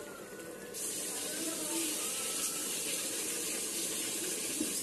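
Curd-based fish curry boiling in an iron kadai: a steady bubbling hiss that grows louder and brighter about a second in.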